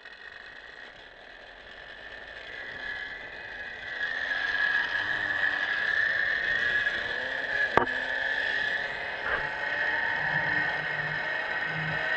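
Zip-line trolley pulleys running along the steel cable: a steady high whine over a rushing hiss that grows louder over the first four seconds and then holds, with one sharp click about eight seconds in.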